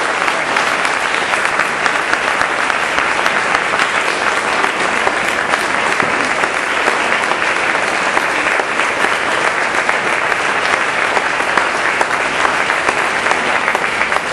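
An audience applauding: many people clapping steadily throughout, without letting up.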